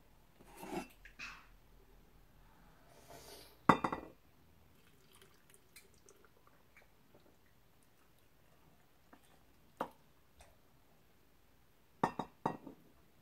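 Hot sugar syrup poured from a stainless steel saucepan into glass canning jars of peach slices, with a soft trickle and drips and clinks of metal and glass. There is a sharp knock a little before four seconds in, and a quick run of clinks near the end.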